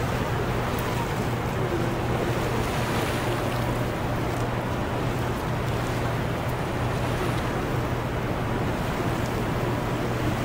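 Steady rush of turbulent whitewater on a river below a dam, with a steady low hum underneath.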